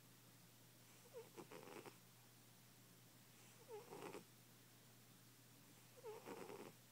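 A fat cat snoring in its sleep: three rattling snores about two and a half seconds apart, each opening with a short squeak.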